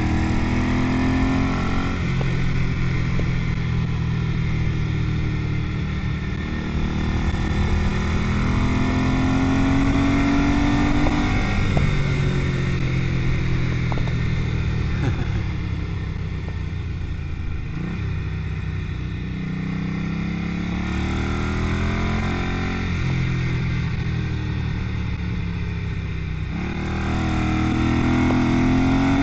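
1978 Ducati 900 bevel-drive twin engine pulling under way, its pitch climbing and falling back at each upshift about three times, with a steadier, slightly quieter stretch in the middle.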